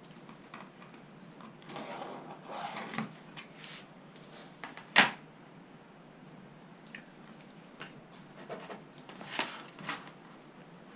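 Light knocks, taps and rustles of hand tools being picked up and put down on a workbench while marking out, with one sharp click about five seconds in.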